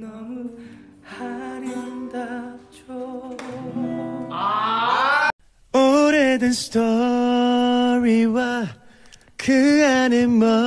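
Male voices singing with some instrumental accompaniment. After a brief break about five seconds in, a solo male voice sings long held notes with vibrato into a microphone.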